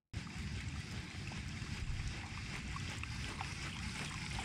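Steady low rumble of wind on the microphone over quiet water sounds around a canoe, with a few faint light ticks.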